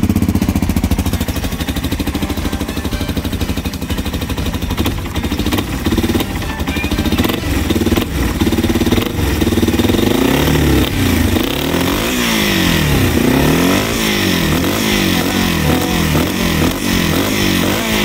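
Yamaha Serow 225's air-cooled single-cylinder four-stroke engine running through a loud Supertrapp aftermarket muffler. It idles steadily at first, then from about halfway the throttle is blipped over and over, the revs rising and falling about once a second.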